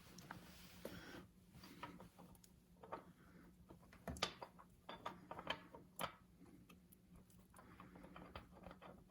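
Faint, scattered metallic clicks and scrapes as a new block heater element is screwed by hand into the cast engine block, over a faint low steady hum.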